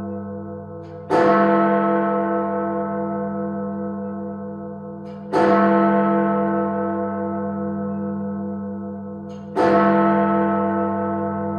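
Big Ben, the great bell of the Westminster clock tower, striking three times about four seconds apart. Each stroke is deep and rings on, fading slowly into the next.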